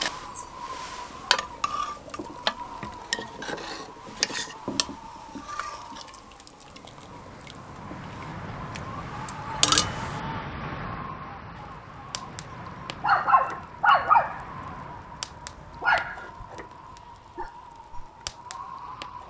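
Ceramic bowls, spoons and pots being handled: a series of separate light clinks and knocks, with a short voice-like sound about two-thirds through.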